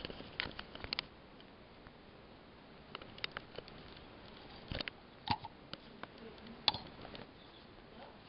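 Scattered light clicks and taps of plastic solar garden stake lights being handled and picked up off the grass, the sharpest tap about six and a half seconds in.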